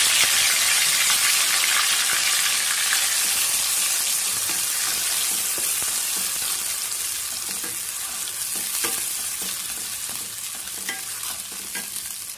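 Wet spice paste of onion, tomato, garlic and ginger sizzling in hot mustard oil in a kadai, stirred with a wooden spatula. The sizzle is strongest at first and slowly dies down, with scattered crackles and spatula scrapes in the latter half.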